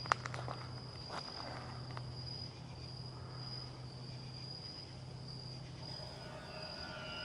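Crickets trilling steadily at one high pitch over a low steady hum. A single sharp click comes just after the start.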